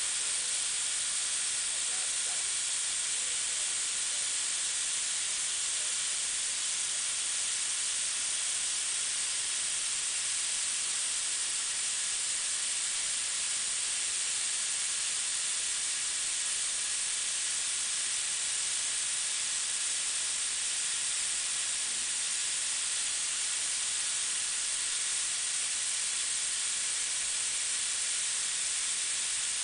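CNC profile grinder grinding a grooved rubber roller: a steady, even hiss with a few faint high steady tones.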